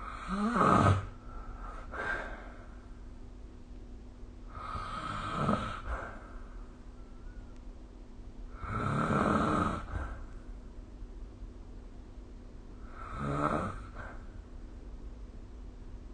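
A sleeping person snoring: four rough snores, each about a second long, coming roughly every four seconds.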